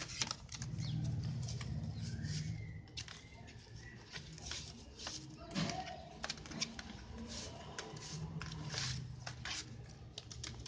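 Cardstock and paper pages of a handmade explosion gift box rustling and flicking as they are unfolded and turned by hand, a run of short, sharp paper clicks.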